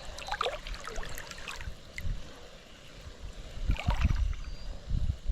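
River water trickling and splashing, with a couple of short splashes about a second in and near four seconds, over a low intermittent rumble of wind on the microphone.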